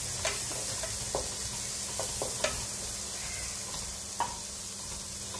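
Chopped vegetables sizzling in hot oil in a non-stick pan, stirred with a wooden spatula that knocks and scrapes against the pan every second or so.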